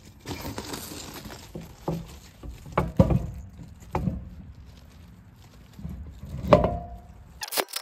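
A few separate metal knocks and clunks as the truck's wheel and tire are handled back onto the hub. The loudest come about three seconds in and about six and a half seconds in, the last with a short ring.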